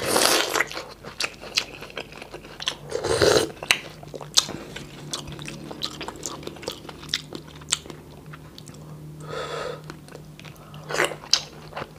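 Close-miked eating sounds: a bite into corn on the cob at the start, then wet chewing and lip smacks with many small clicks as he works through mouthfuls of boiled beef, vegetables and rice. A faint steady hum runs underneath.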